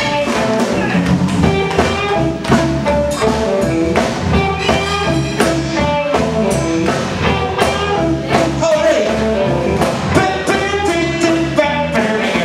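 Live blues-rock band playing: electric guitar, bass guitar and drums.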